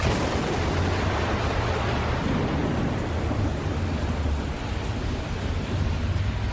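Steady heavy rain with thunder: a sharp crack right at the start, then a rumble that fades over the next few seconds.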